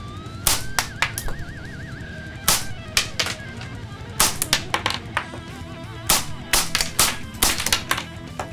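Sharp clicks and clacks of a Tanaka Works Desert Eagle .50AE model gun's mechanism being worked by hand, about twenty at uneven intervals, bunched in the middle and near the end, over light background music.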